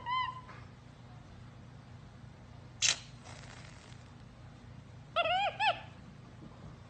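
A cat chirping: quick runs of short, arched chirps, once at the very start and again about five seconds in. There is a single sharp click about three seconds in.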